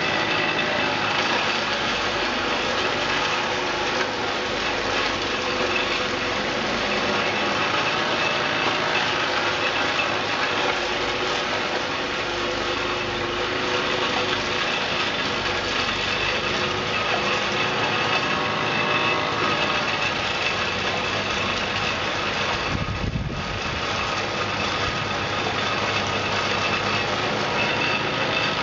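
Two-stage snowblower engine running steadily under load, its upgraded impeller throwing wet snow.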